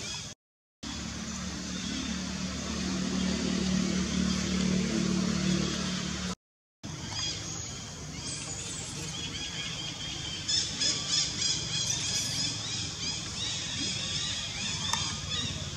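An infant long-tailed macaque gives a quick series of about six short, high squeals a little past the middle. A motor vehicle's steady engine hum fills the first part.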